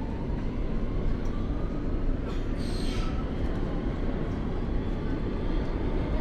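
Ride inside a New York City subway car on the Q line: steady low rumble and rail noise of the train running, with a faint whine rising slowly in pitch during the first couple of seconds and a short hiss about two and a half seconds in.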